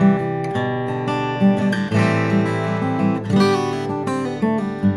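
TYMA D-25CE dreadnought acoustic guitar, with a solid Engelmann spruce top, Santos back and sides and D'Addario EXP16 strings, played with the fingers. Chords are plucked in a steady flowing pattern, each one ringing on under the next.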